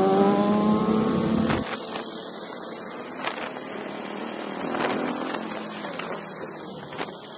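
Motorcycle engine revving, its pitch rising for about a second and a half, then cutting off abruptly. A quieter steady engine and road noise follows, with a few short sharp clicks.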